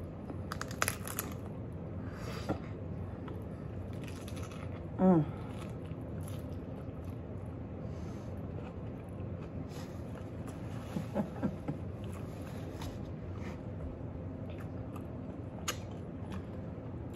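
A person eating a taco close to the microphone: scattered crunchy bites and chewing over a steady low hum. About five seconds in comes a short falling vocal sound, the loudest moment.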